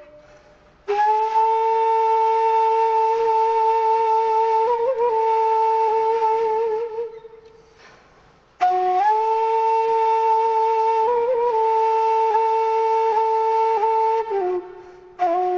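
Background music: a breathy wind instrument holding long, slow notes. A phrase starts about a second in and fades out past the middle, and a second phrase follows after a short pause.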